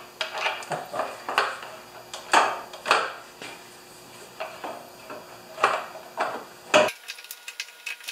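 Irregular clicks, knocks and scrapes of a cover being worked into place on a Champion 4000-watt portable generator's frame, a dozen or so sharp clatters with scraping between them.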